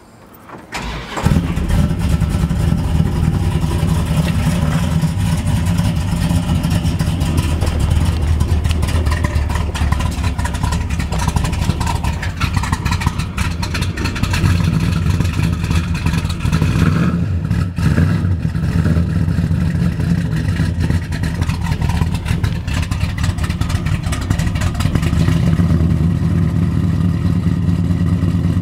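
A 440 cubic-inch big-block V8 with Hedman headers and 3-inch dual exhaust cranks and fires about a second in, then runs steadily. It is a cold start without a choke in freezing weather, and the engine still idles well.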